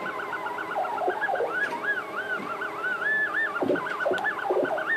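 Homemade beat-frequency metal detector's oscillator heard through an AM radio speaker: a whistling electronic tone that warbles and swoops up and down in quick arcs, R2-D2-like, as it is tuned.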